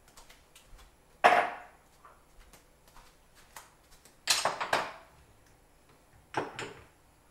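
Kitchen dishes and utensils clattering on the counter: a handful of sharp clanks, each ringing briefly, spread through the stretch.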